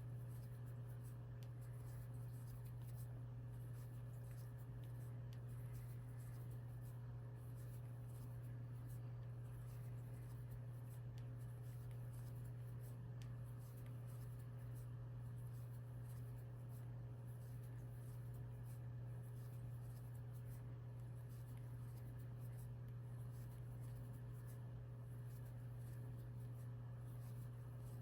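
Faint scratching and light ticking of a crochet hook pulling yarn through stitches, over a steady low hum.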